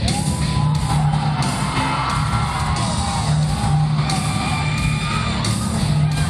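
Music with a steady beat from a video's soundtrack, played over loudspeakers into an assembly hall, with some yelling and whooping from the crowd.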